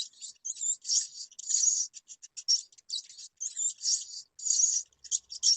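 Rats squeaking: a rapid, irregular string of short high-pitched squeaks and chirps, some with quick curling pitch.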